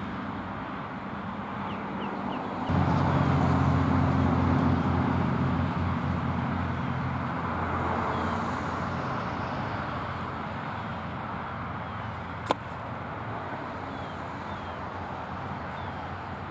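A motor vehicle's engine runs with a steady low hum. It starts abruptly about three seconds in and slowly fades over the next several seconds. Faint short bird chirps and a single sharp click near the end sit over it.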